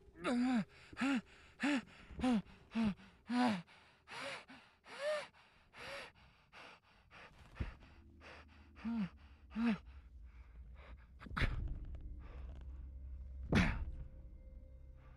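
A man panting and gasping hard inside a spacesuit helmet: a quick run of short voiced breaths, each rising and falling in pitch, that slow and thin out after a few seconds. A low rumble comes in about halfway, and two louder, harsher breaths come near the end.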